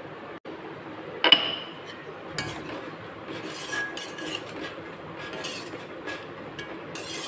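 A stainless steel perforated ladle clinking and scraping against an iron kadai as cooked greens and dal are stirred. There is one sharp metal clink about a second in, then repeated lighter clinks and scrapes.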